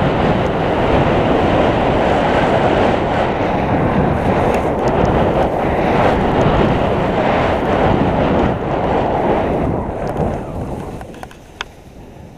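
Wind rushing over an action camera's microphone as a skier descends, mixed with skis running through chopped-up snow. It dies down about ten seconds in, and a few sharp clicks follow.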